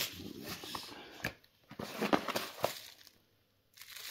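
Cardboard postal box being handled and its torn flaps worked open: rustling and crinkling with a few sharp knocks, and a brief pause midway. It goes almost silent for about a second near the end.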